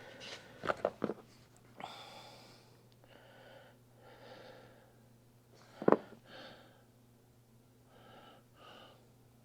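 A man breathing heavily near the microphone, with several soft puffs of breath, while handling parts. There are a few light clicks in the first second, one sharp click about six seconds in, and a faint steady hum underneath.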